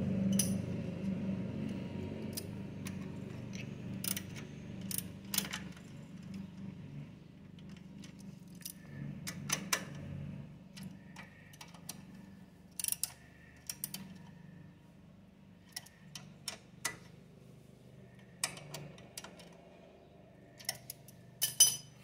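Scattered small metallic clicks and clinks as a motorcycle's bracket, with its washers and rubber grommets, is handled and fitted back into place by hand. A louder clatter comes near the end, over a low background hum that fades away in the first several seconds.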